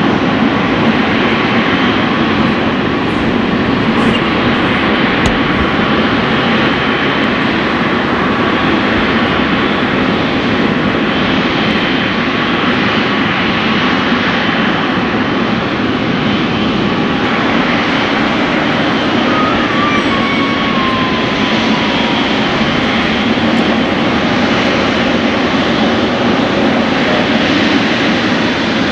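Boeing 777 freighter's twin GE90 turbofan engines running at low taxi power: a steady, even jet rumble with a faint thin tone held on top.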